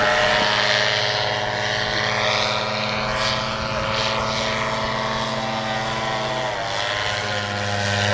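Paramotor trike flying overhead: a two-stroke Simonini 200 cc engine driving a 125 cm propeller makes a continuous buzz. The buzz wavers in pitch, dips briefly about two-thirds of the way through, then climbs again.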